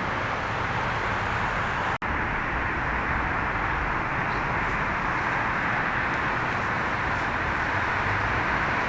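Steady rushing rumble of an approaching freight train, with no horn yet. The sound cuts out for a moment about two seconds in.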